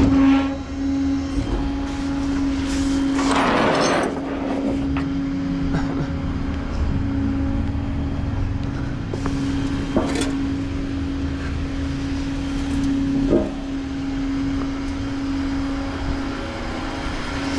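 Vehicle engine idling with a steady, even hum and low rumble, with a short hissing burst about three seconds in and a few light knocks.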